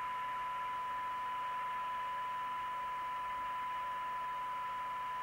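TTI TCB550 CB radio's loudspeaker reproducing a steady 1 kHz test tone from a weak signal-generator signal, mixed with receiver hiss. It is the demodulated test signal used to peak the receive coils for best SINAD.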